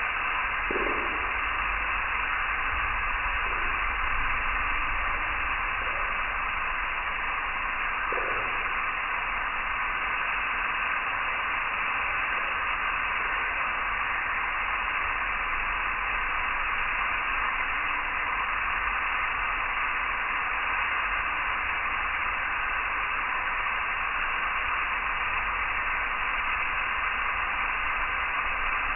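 Steady hiss like radio static, with a low rumble underneath.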